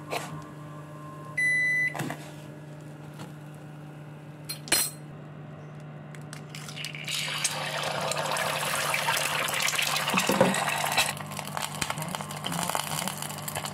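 An egg frying in hot oil in a small pan, sizzling loudly from about seven seconds in, after a sharp knock near five seconds as the egg is cracked. A short electronic beep sounds about a second and a half in, over a steady low hum.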